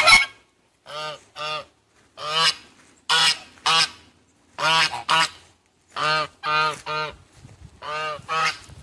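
Domestic geese honking: about a dozen short honks, many in quick pairs, with brief gaps between.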